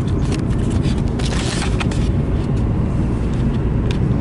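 Steady road and engine rumble inside the cabin of a moving Hyundai taxi, with a few brief rustles and a short rise in hiss about a second and a half in.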